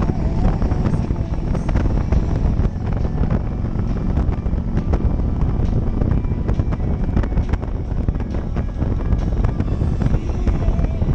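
Touring motorcycle running at a steady cruise down the road, its engine note mixed with heavy wind noise on the helmet-mounted microphone.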